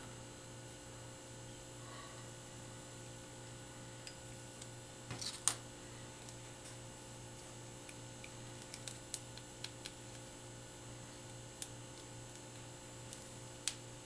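Steady low electrical hum, with scattered faint clicks and ticks as a razor blade cuts an HDMI cable's outer jacket and the cable is worked by hand. The loudest is a short cluster of clicks about five seconds in.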